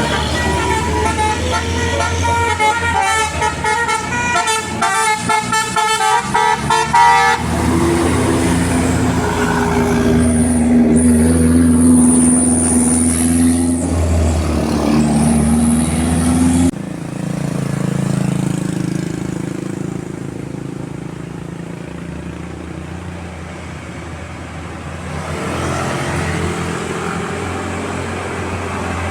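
Bus 'telolet' Basuri musical air horn playing a quick melody of stepping notes for about seven seconds, then a bus engine running with a steady drone. About halfway through the sound changes suddenly to quieter engine and road noise.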